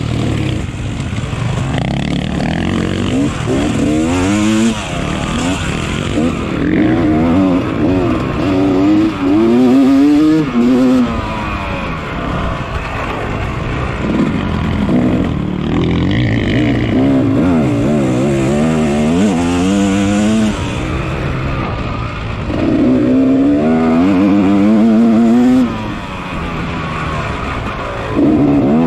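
Yamaha 250 dirt bike engine revving hard under race load, its pitch climbing repeatedly and dropping back at each shift or throttle-off.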